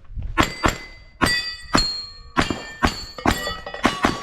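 A string of pistol shots, about two a second, each followed by the ringing of a struck steel target.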